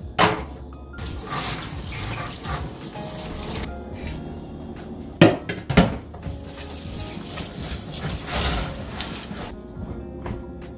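Kitchen tap running into a sink in two spells of a few seconds each. Sharp knocks of things being handled come between them, with background music underneath.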